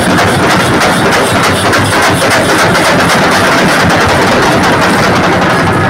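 A large ensemble of chenda drums beaten with sticks, playing a loud, fast, dense unbroken rhythm (chenda melam).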